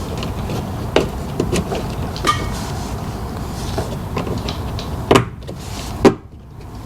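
Sharp knocks and clicks of a plastic mud flap being handled and pressed into place at a truck's wheel well, the two loudest about five and six seconds in, over a steady rumble of wind on the microphone.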